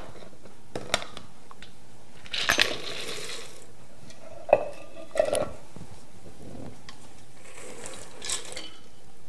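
A utensil scraping and knocking against a mixing bowl while chopped pecans are folded into cookie dough. There are a few sharp knocks and a couple of short scrapes.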